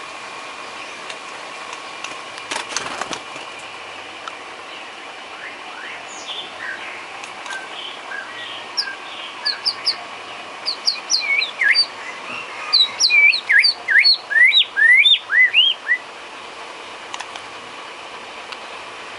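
White-rumped shama (murai batu) singing: scattered whistled notes that build into a fast, loud run of short rising whistles, then break off. A brief clatter sounds a few seconds before the song starts, over a faint steady hum.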